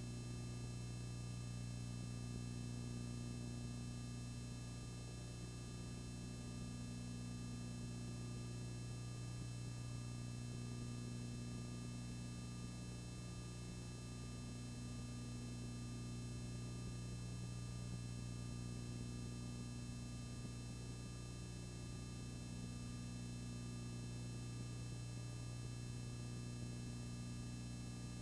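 Steady low electrical hum with a faint hiss, unchanging throughout; no other sound.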